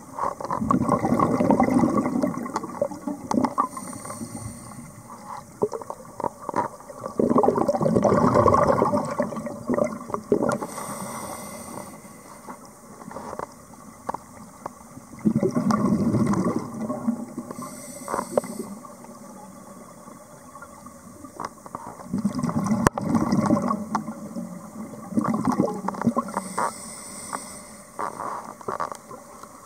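Scuba diver breathing through a regulator underwater in a slow, regular cycle of about four breaths. Each breath is a short, faint hiss of air on the inhale, then a longer burst of gurgling exhaust bubbles on the exhale.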